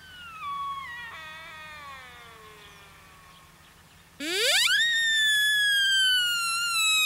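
Two high, whistling rut calls of a deer stag: a fainter one sliding down in pitch over about three seconds, then, about four seconds in, a much louder one that sweeps sharply up, holds high and slowly sinks.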